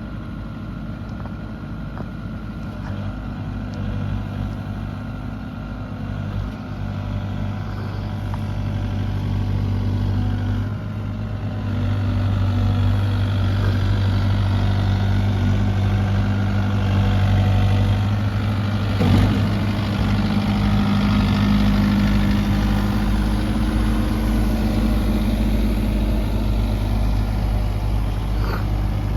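Kubota U55-4 mini excavator's diesel engine running steadily, growing louder about twelve seconds in. There is one sharp knock about two-thirds of the way through.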